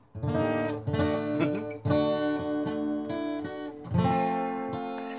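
Acoustic guitar strummed, chords ringing: a heavy strum about every two seconds with lighter strokes between, the last chord left to ring and slowly fade.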